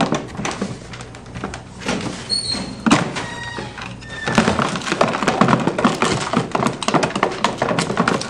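Music playing under the clatter and tapping of a utensil and container in a plastic tub being stirred; the knocks grow busier about halfway through.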